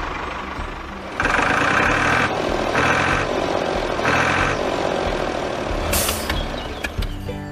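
Truck engine running with a steady low rumble, with three bright tones of uneven length starting about a second in, and a short air-brake hiss about six seconds in.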